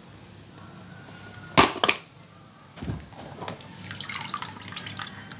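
Small plastic toy truck dropped into a tub of water: two sharp splashes about a second and a half in, a low plop a second later, then water sloshing and dripping.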